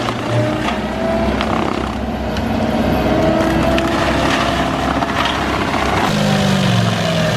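Forestry mulcher running under load, its carbide-toothed drum grinding into a pine log about a foot thick: a steady diesel drone and whine with sharp cracks of wood breaking. The engine note shifts about six seconds in.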